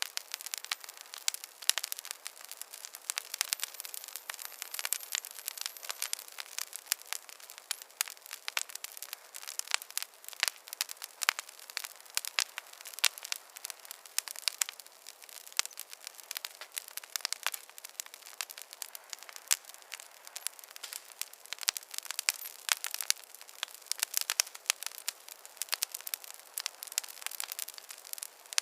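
Fireplace fire crackling: a dense, irregular stream of small sharp pops and snaps, with no low roar of flame underneath.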